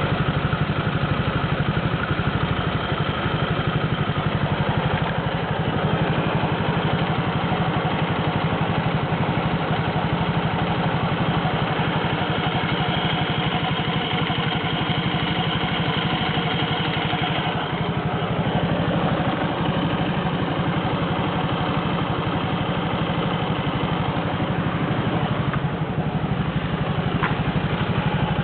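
Suzuki GSR125 motorcycle's single-cylinder engine idling steadily, with a noise that the owner asks about as possibly abnormal.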